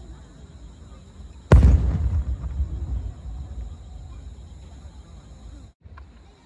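An aerial firework shell bursting: one sharp boom about a second and a half in, followed by a low rumble that echoes and fades over a second or two.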